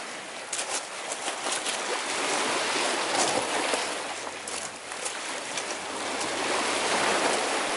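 Small sea waves breaking over rocks and washing through the pebbles: a steady rush that swells and ebbs every few seconds, with light crackling from the foam.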